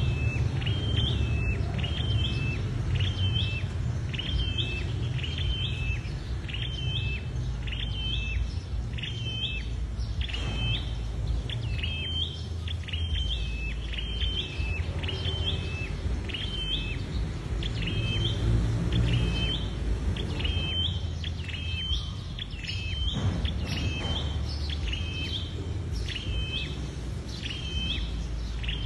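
A small cage songbird (the Vietnamese 'sâu đầu đỏ', red-headed) giving its repeated 'lụp' call: a short high call of two quick falling notes, about once a second, over a steady low rumble.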